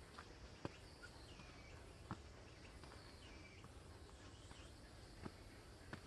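Faint forest ambience: small birds chirping repeatedly, with a few soft footsteps on the trail about a second or two apart.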